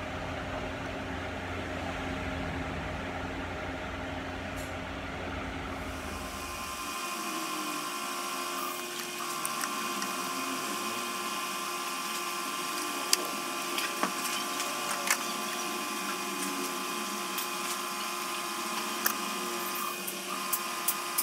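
A steady machine whine with a few fixed pitches, breaking off briefly twice, with scattered light clicks in the second half.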